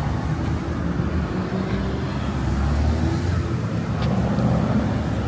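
Steady low rumble of car engines and passing traffic.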